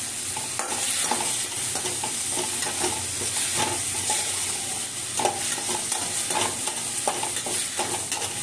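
Chopped onions with ginger-garlic paste sizzling in oil in a stainless steel kadai, while a slotted steel spoon scrapes and clinks against the pan as they are stirred and sautéed until soft.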